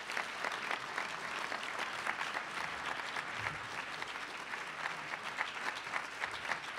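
Audience applauding, a steady mass of many hands clapping.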